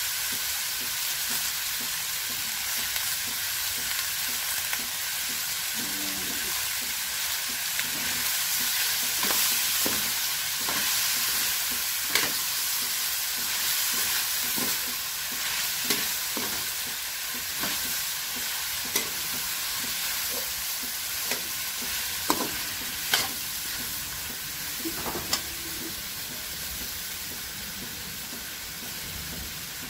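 Shredded cabbage, carrots and meat sizzling in a hot metal wok while being stir-fried, with a metal spatula scraping the pan and knocking against it in several sharp clicks.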